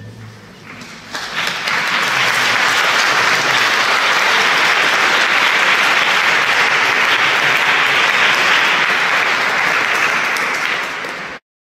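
Audience applauding after the last note dies away, starting about a second in and cut off abruptly near the end.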